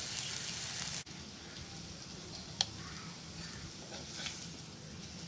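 Brinjal coconut masala sizzling softly in a pan on low heat, a faint crackling hiss that drops suddenly about a second in and continues more quietly, with one sharp click partway through.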